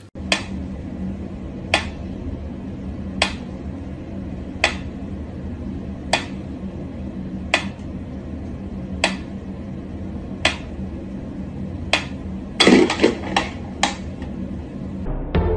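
Mechanical metronome ticking at a slow, even beat, one tick about every second and a half. Near the end there is a brief clatter of several louder knocks, over a low steady hum.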